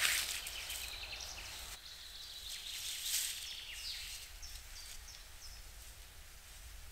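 Leafy green conifer branches rustling as they are handled and stuffed into a stick-and-leaf debris shelter as bedding, loudest at the start and again about three seconds in. Small birds chirp faintly in the background.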